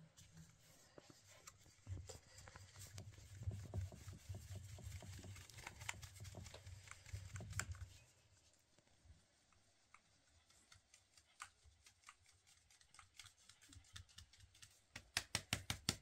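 Flour being scooped by hand from a metal storage bin into a metal basin: soft scraping and rustling with light knocks of metal, dying down about halfway through. Near the end comes a quick run of regular light taps.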